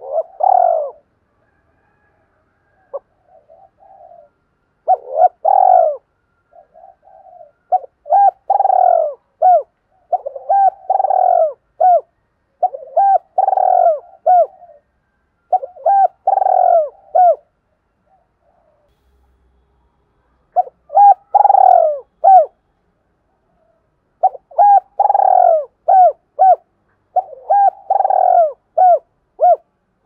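Spotted dove cooing in repeated phrases, each a longer burred coo followed by several short hooked coos, with a pause of a couple of seconds near the middle.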